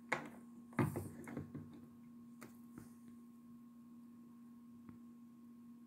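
Steady electrical hum with a faint higher tone. About a second in it is broken by a short cluster of clicks and crackles, followed by a few lone ticks.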